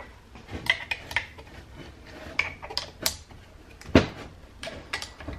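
Small steel spanner clicking and clinking on the bolts of a turbocharger housing as they are undone, a string of short metal taps with one louder clank about four seconds in.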